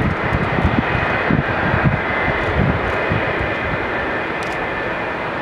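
McDonnell Douglas MD-80's twin rear-mounted Pratt & Whitney JT8D turbofans running at low taxi power: a steady whine over a low, uneven rumble, with no spool-up.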